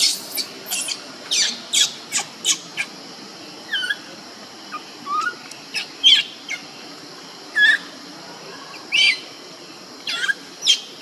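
Baby macaque crying in distress: a string of short, high-pitched shrieks and squeals at irregular intervals, some falling in pitch, the loudest in the first two seconds and about six seconds in. These are the separation cries of an infant left by its mother.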